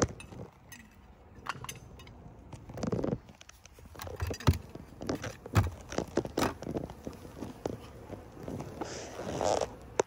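A run of knocks and scrapes as bricks and a concrete block are set down on a wooden beehive lid, the loudest knocks about four and a half and five and a half seconds in, with rustling handling noise near the end.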